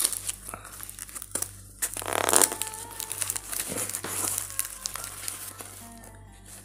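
Packing tape and brown paper wrapping on a cardboard parcel crinkling and tearing as fingers pick at and peel it, with a louder burst of rustling about two seconds in.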